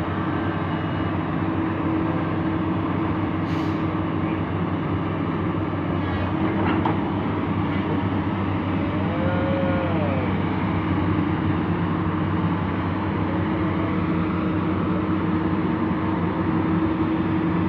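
Heavy diesel machinery running steadily, with a constant low engine hum and a steady whine, as pipe is lifted and loaded. A couple of faint short squeaks come about halfway through.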